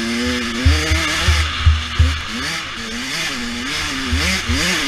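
A 100cc dirt bike engine running hard, its pitch rising and falling about twice a second as the throttle is worked. Heavy low thuds come through at irregular moments.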